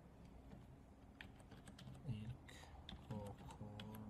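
Quiet, irregular keystrokes on a computer keyboard as a line of text is typed.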